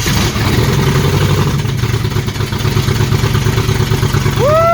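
1990 Ford Mustang LX's V8 running loud and even with a fast, steady pulse, just after catching on its first start, now idling properly with the fuel pressure regulator's vacuum hose reconnected. Near the end a person lets out a rising, held shout over the engine.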